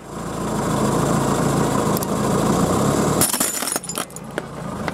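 A car engine running as the spiked tire creeps forward, then, about three seconds in, a quick burst of cracking and shattering as the tire crushes a glazed ceramic frog-shaped soap dispenser.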